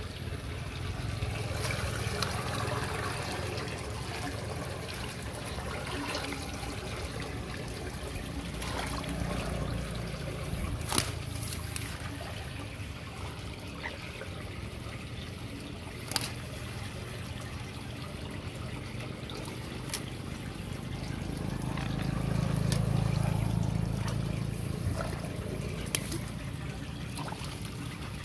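Muddy runoff water trickling through the slots of a partly clogged concrete drain culvert, swelling briefly louder about two-thirds of the way in. A few sharp clicks sound over the water.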